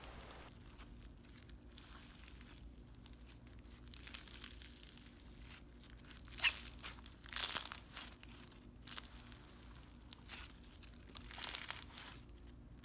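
Fruit punch floam, clear slime packed with foam beads and jumbo fruit beads, being squeezed and stretched by hand, giving soft crackling crunches with a few louder bursts in the middle and near the end.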